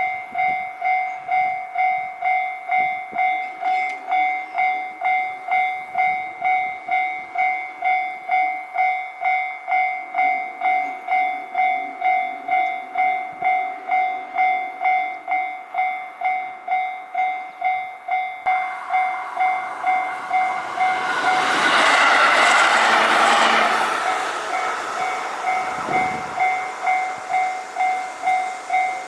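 Japanese railroad crossing's electronic warning bell dinging steadily, about three strokes every two seconds. About 18 seconds in, a shinkansen train running on the conventional line rushes through the crossing, loudest a few seconds later, then fades while the bell keeps ringing.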